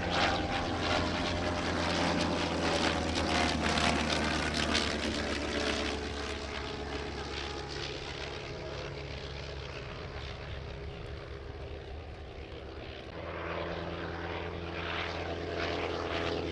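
Rotary engine and propeller of a Sopwith First World War fighter in flight, running with a crackling note. It passes and fades for several seconds, then grows louder again near the end.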